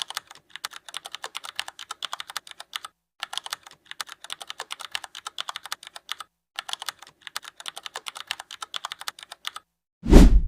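Typing on a computer keyboard: rapid key clicks in runs with short pauses, then a single loud thump near the end.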